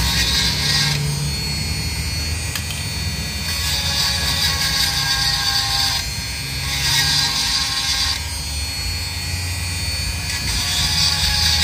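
Handheld rotary tool running at high speed with a steady whine, its small bit grinding against the steel splines of a shaft in repeated surges of a second or two: dressing up damaged splines.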